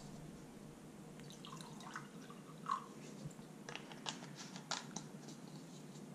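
Faint trickle of pH 7.0 calibration solution poured from a plastic bottle into a small glass, followed by several light clicks and taps as the bottle and cap are handled and set down.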